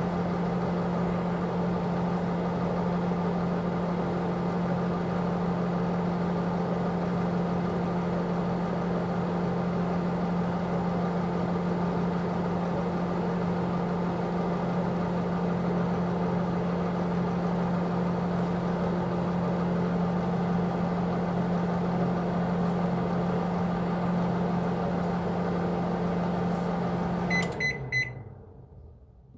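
Microwave oven running with a steady hum, which stops near the end and is followed by three short high beeps: the cooking cycle finished.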